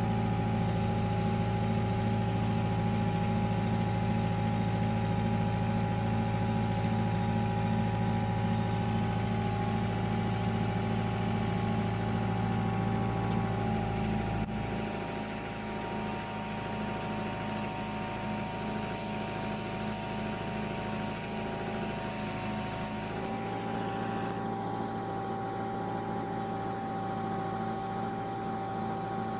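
Motor of a crane hoisting a miniature steam locomotive, running steadily with a whine over a low hum. The low hum drops away about halfway through, and the whine's pitch shifts slightly with the load.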